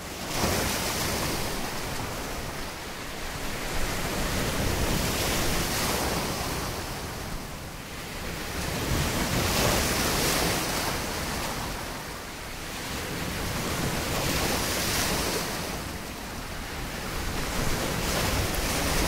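Sea surf breaking and washing onto a sandy beach, swelling and fading every few seconds, with wind buffeting the microphone.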